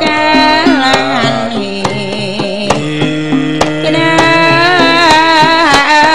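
Javanese karawitan music: a sustained, wavering melody line over a held low note, punctuated by frequent hand-drum strokes.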